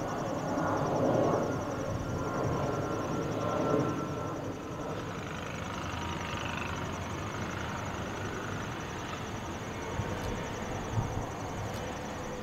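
Bombardier CSeries CS100's Pratt & Whitney PW1500G geared turbofans at taxi power, heard at a distance as a low, even rumble with a faint whine; the jet makes hardly any noise. Crickets chirp steadily in a fast, high pulse throughout.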